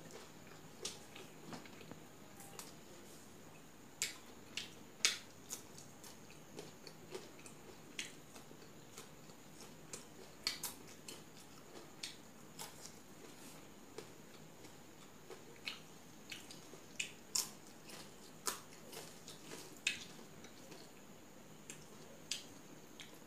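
Close-up eating sounds: chewing and biting raw green stems and rice, heard as irregular sharp crisp clicks, roughly one or two a second.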